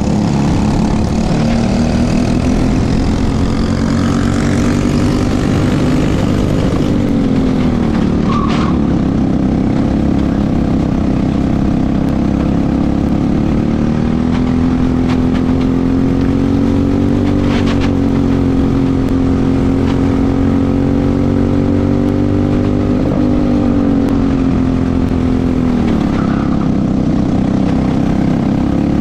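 Briggs & Stratton LO206 single-cylinder four-stroke kart engine at racing speed, heard onboard. Its note climbs on the straights and drops several times as the driver lifts off for the corners.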